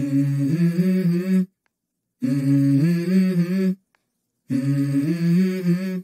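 Background music: a low, wordless vocal hum in three phrases of about a second and a half each, with complete silence between them.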